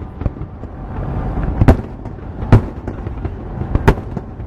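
Aerial firework shells bursting: three loud, sharp bangs about a second apart, with smaller cracks and a low rumble between them.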